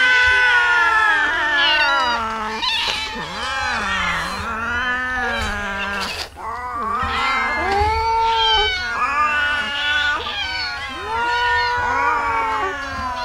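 A crowd of hungry street cats meowing and yowling all at once, many long calls overlapping without a break, begging to be fed.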